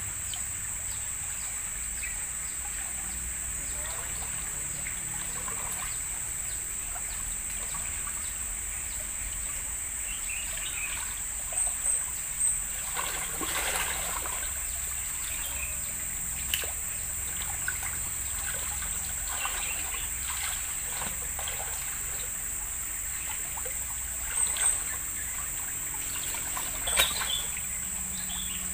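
River water trickling, with a few small splashes around the middle and near the end, over a steady high-pitched insect drone.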